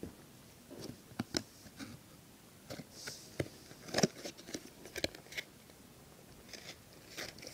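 Handling noise of a trading card and fingers close to the microphone: scattered light clicks and rustles at an irregular pace, the loudest about four seconds in.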